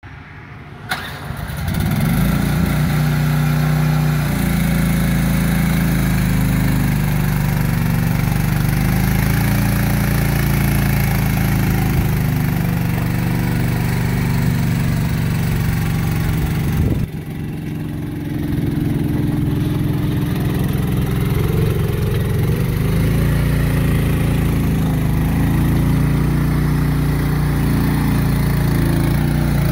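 Small gasoline engine of a MIVA VA15 mini excavator running steadily, coming up to full level within the first two seconds. About seventeen seconds in there is a click and a brief drop in level before the engine sound returns.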